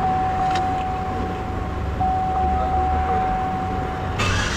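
A steady high-pitched electronic tone, broken briefly about a second in, over a low vehicle rumble. Shortly before the end the tone cuts off and a brighter hiss takes over.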